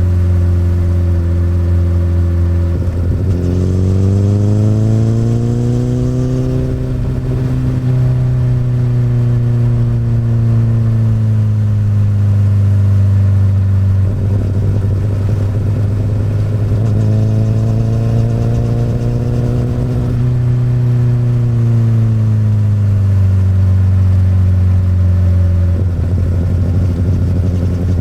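Akrapovic exhaust on a 2008 Honda CBR1000RR's inline-four engine, riding along with the engine pitch rising and falling several times, with brief breaks as gears change.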